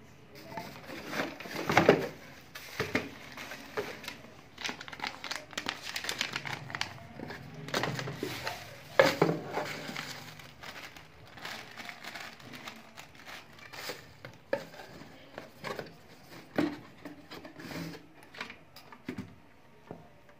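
Plastic wrapping crinkling and a cardboard box rustling, with knocks of hard plastic parts, as an electric air blower and its nozzle and cord are unpacked by hand. The handling noise is irregular, with the loudest knocks about two seconds in and near the middle.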